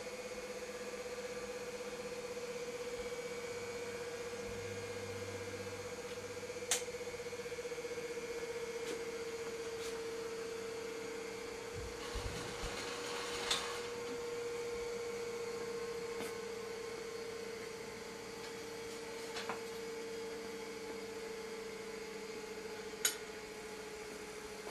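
A steady hum holds one tone throughout. A few sharp metallic clicks and taps come over it, from the steel rear carrier and tandem frame being handled in the jig.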